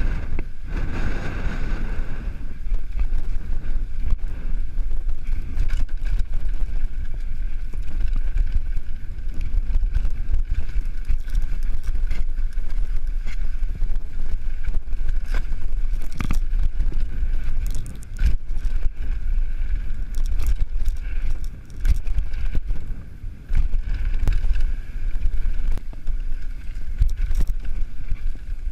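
Wind noise on the microphone and a low rumble during a fast descent on a 2015 Cannondale Jekyll full-suspension mountain bike. Many sharp clatters run through it as the bike rattles over rough trail.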